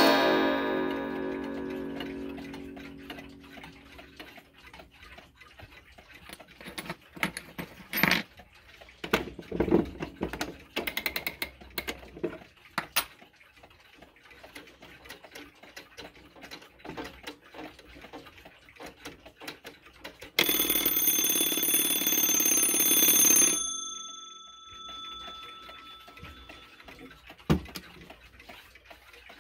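Seth Thomas shelf clock: a gong strike dies away at the start, then the movement ticks and clicks while its hands are turned. About two-thirds of the way in, its alarm bell rings rapidly for about three seconds, then rings out.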